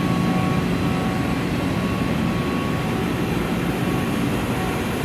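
Gas-fired hot-water boilers running in a boiler room: a steady roar of burners and draft fan, with a constant low hum.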